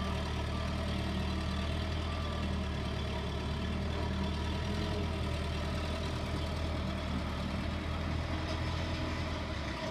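Case 580L backhoe's four-cylinder diesel engine idling steadily.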